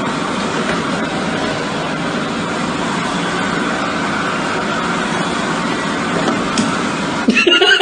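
Steady running noise of a moving car, engine and road. About seven seconds in it gives way abruptly to a louder sound with a wavering pitch.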